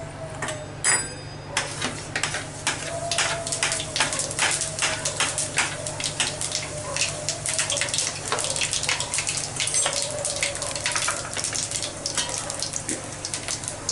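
Panch phoron seeds crackling and sizzling in hot mustard oil in a kadhai, a dense run of sharp pops that starts about a second and a half in, as the whole spices begin to fry. A brief clink comes just before the crackling starts.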